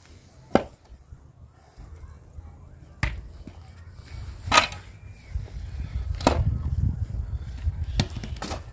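Pickaxe and shovel digging a trench in stony soil: about six sharp strikes at uneven intervals, over a low rumble.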